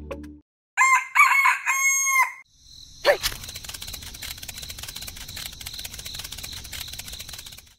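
A rooster crows once, starting about a second in and lasting under two seconds. A steady, fast rattling clicking follows it.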